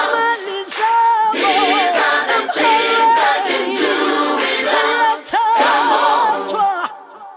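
Gospel choir singing a cappella, several voices with wavering vibrato, fading out near the end.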